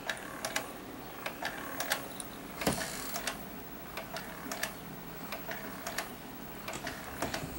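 Baby swing clicking and ticking irregularly as it rocks, with one louder knock about two and a half seconds in.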